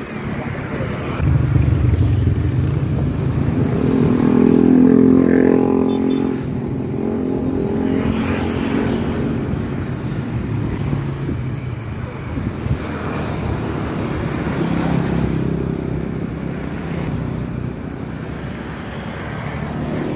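Road traffic passing close by, mostly motorcycle engines, loudest about four to six seconds in.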